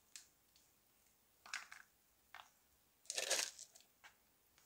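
Crispy onion flakes crumbled between the fingers and sprinkled over raw chicken wings in a baking tray. About five short, dry crunching rustles, the loudest a little past three seconds in.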